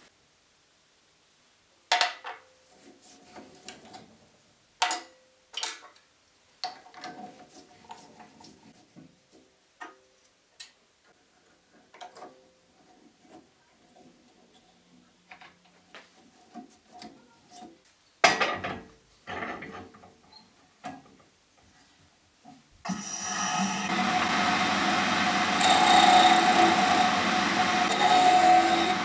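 Clicks, knocks and rubbing as a wooden pen blank is fitted onto the metal mandrel and collet chuck of a small wood lathe. About 23 seconds in, a loud, steady mechanical sound takes over: the lathe running, with a turning tool cutting the spinning pen blank.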